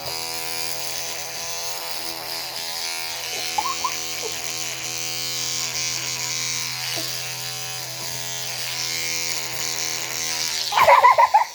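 Electric toothbrush buzzing steadily, a low hum with an even whir over it. The buzz cuts off near the end, and a brief louder sound follows.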